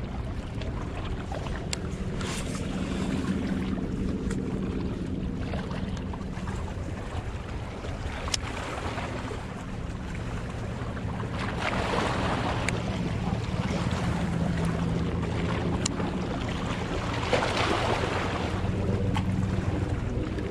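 Small waves washing against shoreline rocks, with wind on the microphone and a low steady hum underneath; the water swells louder twice, about twelve and seventeen seconds in.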